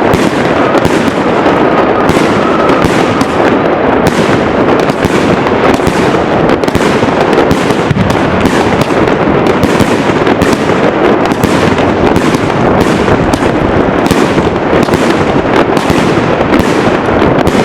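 A dense, continuous barrage of fireworks: many overlapping bangs and cracks following each other with no pause, loud throughout.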